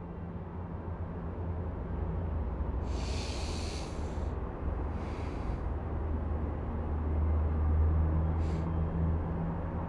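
A low, steady rumbling drone that slowly swells, with three short hissing breaths over it, about three, five and eight and a half seconds in.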